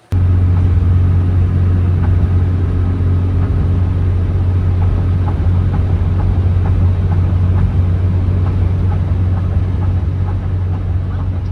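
Steady low rumble of a vehicle on the move: engine and road noise, with no change in pitch.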